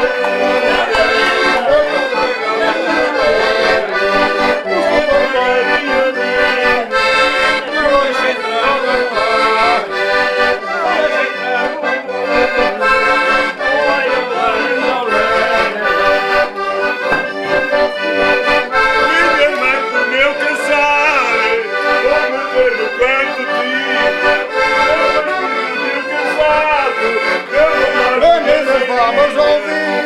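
Diatonic button accordions playing a traditional Portuguese folk tune.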